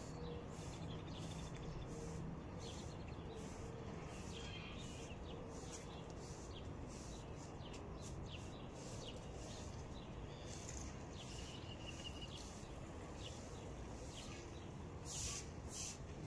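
Broom with plastic bristles sweeping concrete pavement, a faint steady run of brushing swishes about two a second. Birds chirp now and then over low outdoor background noise.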